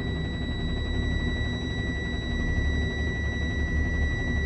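Truck's low-air-pressure warning buzzer sounding one steady high tone over the engine idling: the air tanks are still below about 60 PSI while the compressor builds pressure back up.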